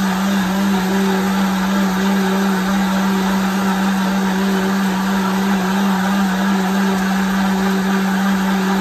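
High-speed countertop blender running steadily at one speed, a loud even hum with a whirring rush over it, as it blends soaked Irish moss (sea moss) and water into a gel.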